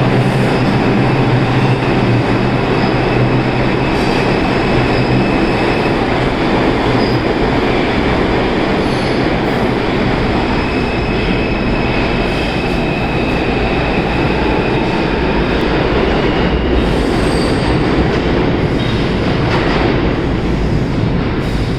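R142 subway train running steadily through a station without stopping: a constant rumble of steel wheels on the rails, with thin high wheel squeals that come and go.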